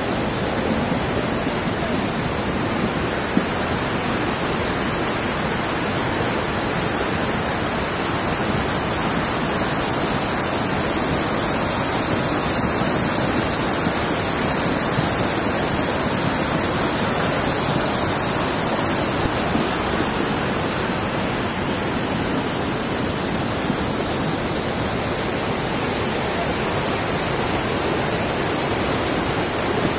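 Muddy flash-flood water rushing steadily over rocks and debris.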